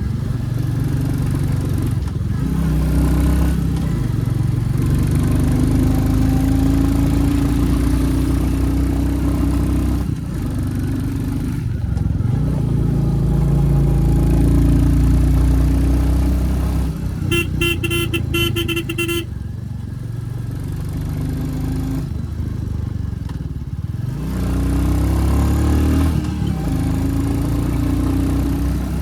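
Royal Enfield Classic 350 single-cylinder engine under way, its pitch rising as it pulls and dropping back at several gear changes. A horn sounds for about two seconds a little past the middle.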